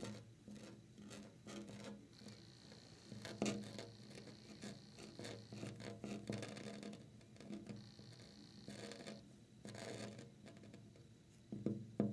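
Long fingernails tapping and scratching on a crinkled sheer curtain at a window: a run of light taps with rustling scratches, louder about three seconds in and again near the ninth second.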